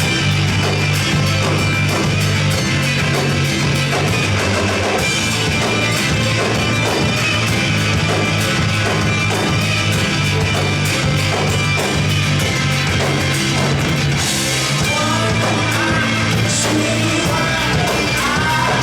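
Rock band playing live in a room, with a steady bass line under the full band; a sung vocal comes in about three quarters of the way through.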